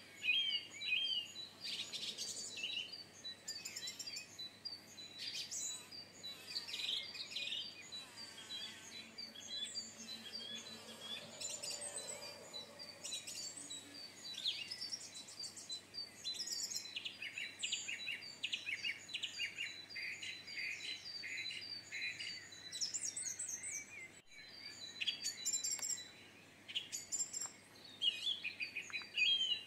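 Several songbirds singing and calling over one another in a garden. A quick repeated chirp comes at the start and again near the end, with varied twittering phrases in between.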